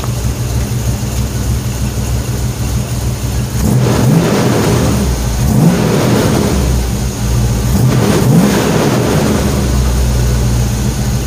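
Truck engine idling through its newly installed exhaust and mufflers, then revved up several times from about four seconds in; it sounds pretty clean.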